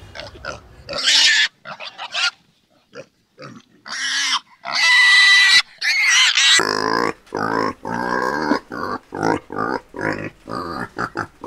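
Pigs squealing in a few high cries, the loudest about four to five seconds in. From about seven seconds in comes a rapid run of short grunts.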